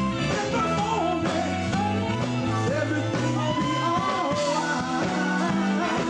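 A band playing an upbeat rock-and-roll song: a lead singer over bass, guitar and drums keeping a steady beat.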